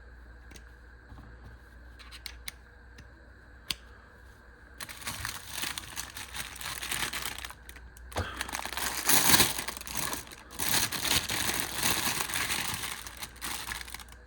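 Plastic packaging crinkling and tearing as a set of RC paddle tires is unwrapped. A few light clicks come first, and the crinkling starts about five seconds in and carries on.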